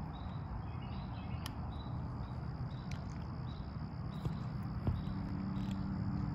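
Insects chirping outdoors in an even rhythm, about two short high chirps a second, over a low background rumble. A few light clicks come from handling the telescope, and a low steady hum comes in near the end.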